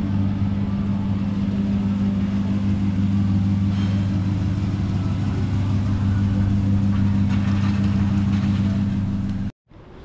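A motor vehicle engine running with a steady low drone, cut off abruptly near the end.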